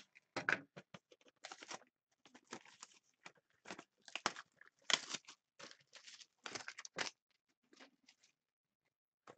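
Packaging of a sealed box of hockey cards being torn open and handled: irregular tearing and crinkling noises that die away after about seven seconds.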